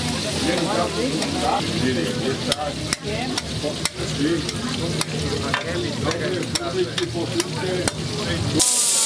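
Metal tongs clicking and scraping against steel griddle trays as food fries with a sizzle on a flat-top griddle. About eight and a half seconds in, a loud hiss of sizzling starts suddenly.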